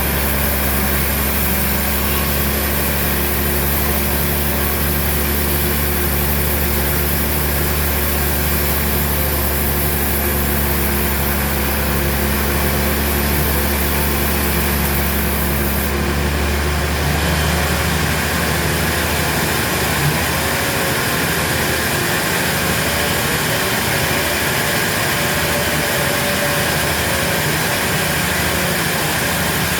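Engine of sawmill machinery running steadily with a constant drone. The sound changes abruptly a little over halfway through, as a different engine or machine takes over.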